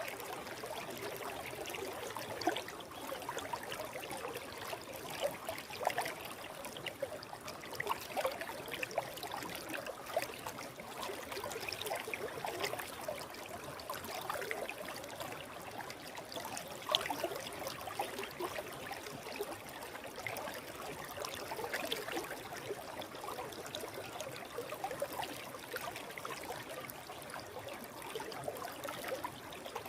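Stream water flowing steadily over rocks, a continuous rushing with small, quick splashes and gurgles throughout.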